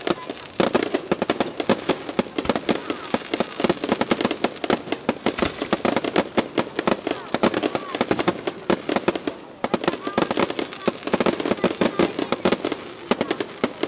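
Fireworks going off in a dense, rapid crackle of sharp pops, with a brief lull just after the start and another about two-thirds of the way in.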